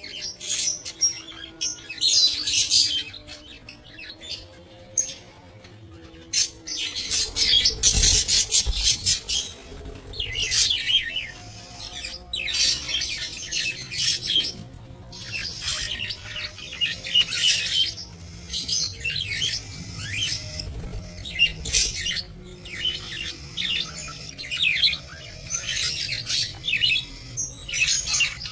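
A flock of budgerigars chattering and squawking, many overlapping warbles and chirps without a break.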